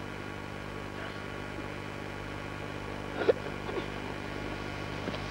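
Steady electrical hum and tape hiss of an old camcorder recording. About three seconds in comes one short, faint call, followed by a weaker one.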